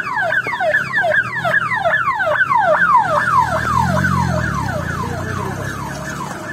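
Ambulance siren sounding a rapid repeating falling yelp, about three to four sweeps a second, with a vehicle engine swelling close by about four seconds in.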